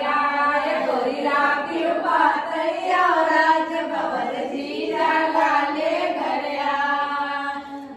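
Several women singing together in unison without instruments, a song in long drawn-out notes.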